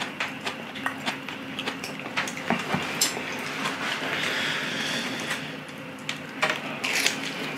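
A person chewing food close to the microphone: scattered small crunches and wet mouth clicks.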